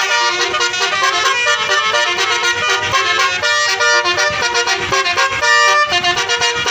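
A bus's basuri telolet horn playing a melody: a continuous run of pitched notes that change every fraction of a second.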